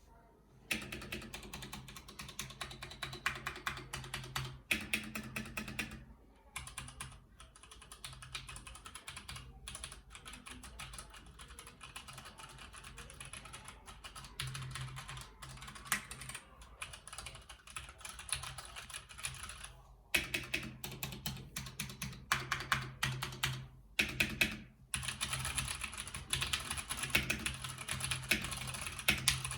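Continuous fast typing on a mechanical keyboard with linear switches, the key clicks broken by short pauses about 6, 20 and 24 seconds in. A faint steady low hum runs underneath.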